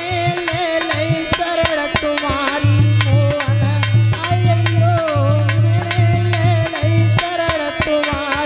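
Devotional folk music: a dholak (two-headed barrel hand drum) played with quick strokes and a booming bass beat, under a held melody line that wavers up and down in pitch.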